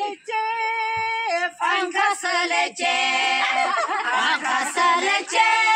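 Unaccompanied voices singing: one voice holds a long high note, then several voices sing together.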